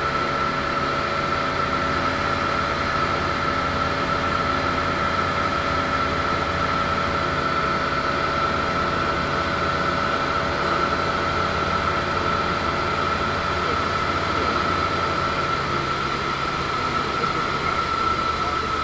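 Single-engine ultralight aircraft's engine and propeller running steadily in flight, heard from inside the cockpit, with a constant high-pitched tone over the noise.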